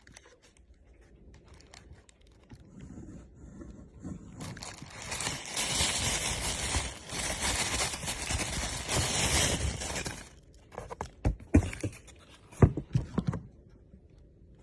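Plastic toy packaging rustling and crinkling for about six seconds, then several sharp clicks and knocks as the plastic toy or its packing is handled.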